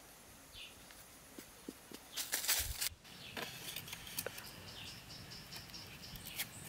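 Faint forest ambience with short insect and bird chirps. About two seconds in comes a brief burst of scraping noise, cut off suddenly, followed by scattered light clicks and knocks of bamboo pieces being handled and set in place.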